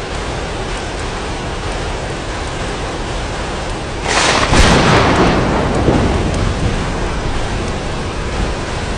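Steady rain, with a clap of thunder about four seconds in: a sudden sharp crack that rolls off over the next two to three seconds.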